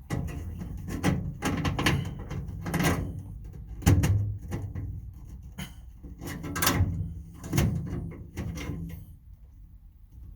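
Tool box drawers being slid open and shut and handled: a run of knocks and scrapes, the loudest about four seconds in, dying away near the end.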